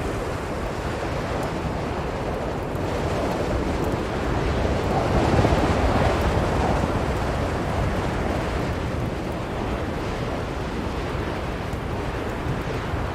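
Blizzard wind blowing steadily as a dense rush of noise. It swells into a louder gust a little before halfway through, then eases back.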